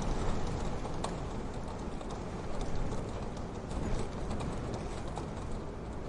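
Wood fire crackling in a wood-burning stove: irregular sharp pops and ticks over a steady low rumble and hiss of the burning fire.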